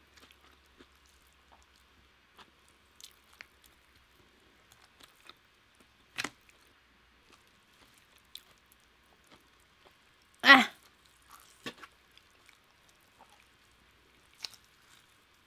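Close-up eating sounds: scattered wet mouth clicks and chewing, with a fork and gloved fingers tearing apart a roast chicken. A sharper sound comes about six seconds in, and a louder, longer one about ten and a half seconds in.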